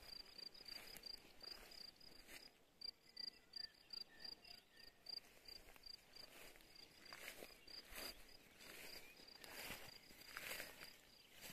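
A cricket chirping steadily in short, even, high-pitched pulses, about four a second. Faint rustling and steps through grass join in over the second half.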